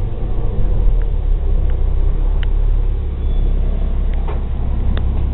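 City bus running, a steady low rumble of engine and road noise heard from inside the cabin, with a few light clicks.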